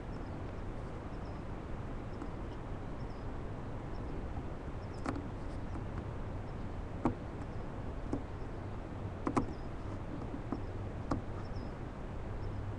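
A barn owl in a wooden nest box feeding on a rabbit: scattered sharp clicks and scratches, a handful over several seconds, over the steady hiss and low hum of the nest-box microphone.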